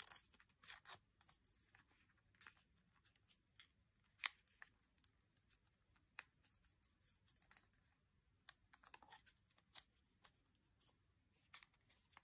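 Small sheet of origami paper being folded and creased by hand: faint, scattered crinkles and ticks, with one sharper crackle about four seconds in.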